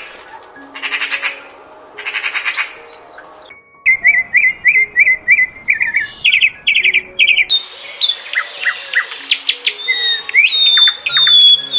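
Birds calling: two harsh rasping bursts, then a quick run of short chirps about three a second, then a busy mix of overlapping whistled chirps and sliding notes in the second half.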